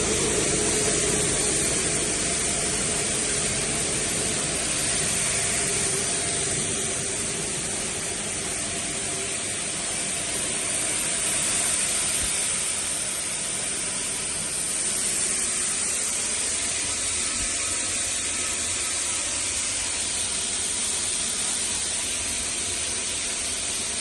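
Plastic granulating (recycling pelletizer) machine running, a steady mechanical din with a strong high hiss that holds level throughout.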